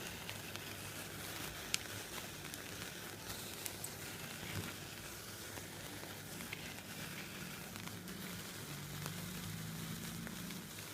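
Three black snake firework pellets burning: a faint, steady fizzing hiss with scattered small crackles and ticks.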